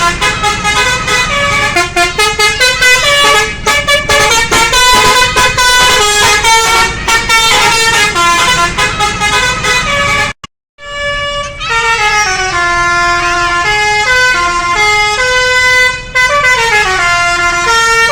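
Bus "telolet basuri" musical horn playing a tune in stepped notes. The first half is quick and choppy, then the sound breaks off sharply for a moment about ten seconds in and resumes with longer, held and sliding notes.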